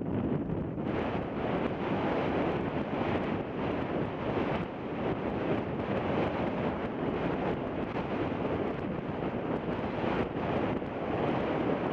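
Wind buffeting the microphone: a steady rushing noise that rises and falls in gusts.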